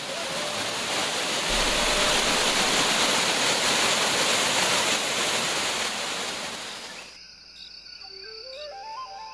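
La Mina Falls, a rainforest waterfall, rushing steadily with a loud, even roar of falling water. About seven seconds in it cuts off, leaving a quieter background with thin steady tones and a short rising run of tones.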